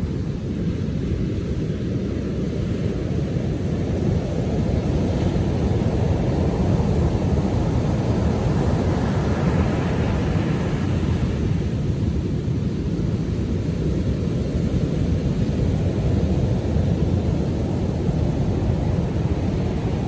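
Heavy ocean surf after a storm: waves breaking and washing up a sandy beach in a constant low rumble, with the hiss of a bigger breaking wave swelling up about halfway through.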